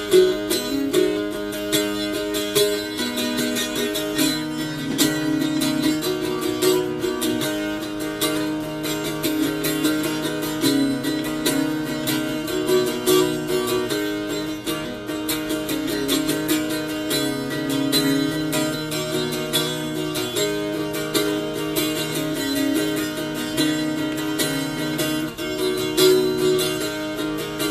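Irish bouzouki played solo with a pick in a free improvisation: fast picked notes and strums over low strings left ringing underneath.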